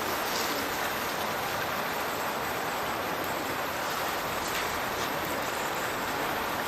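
Burn water pouring from a culvert outfall and splashing into the river below: a steady rush of falling and splashing water.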